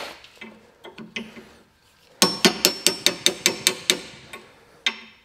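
A small hammer tapping a steel punch against the metal wedge in a hatchet's eye to work the wedge loose. About two seconds in comes a quick run of about ten sharp metallic taps, roughly five a second, that gets quieter as it goes, then one more tap near the end.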